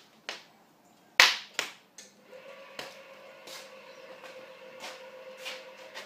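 A few sharp knocks, the loudest a little over a second in, then an electric rotisserie motor starts about two seconds in and runs with a steady hum, turning the spit, with scattered ticks over it.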